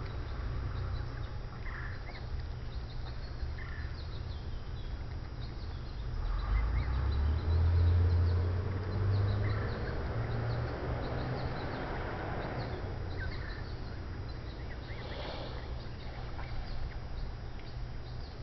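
Canada geese giving a few short, soft calls among rustling, over a low rumble on the microphone that swells about halfway through.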